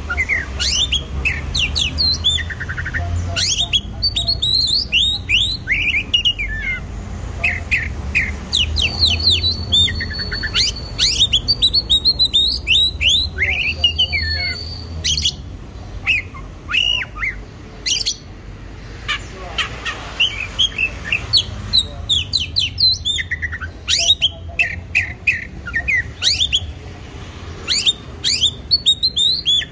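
Oriental magpie-robin (kacer poci) singing a fast, varied song of rapid chirps, squawky notes and quick downward-sweeping whistles. Lovebird-style chattering calls are mimicked into the song, with a few longer held whistles.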